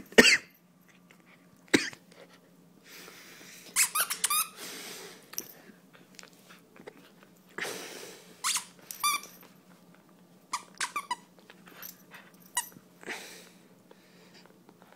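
German Shepherd puppy at play, giving short high-pitched squeaky whines and yips in scattered bursts, with noisy huffs between them.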